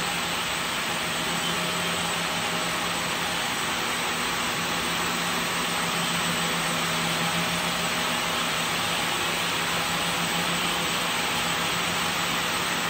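A 510-spindle crepe two-for-one (TFO) yarn twisting machine running: a steady, even whirring hiss of many spindles turning, with a steady low hum underneath.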